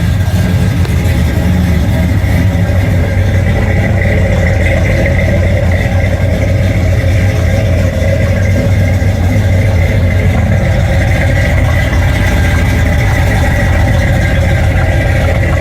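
Chrysler 340 small-block V8 in a Dodge Dakota pickup, running steadily through its newly fitted exhaust.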